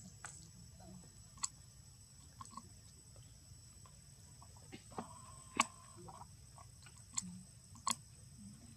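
Quiet outdoor forest ambience: a steady high-pitched hum with a low rumble underneath. Scattered sharp clicks and ticks come through it, the loudest about five and a half seconds in and twice more near the end, and there is a brief squeaky pitched sound about five seconds in.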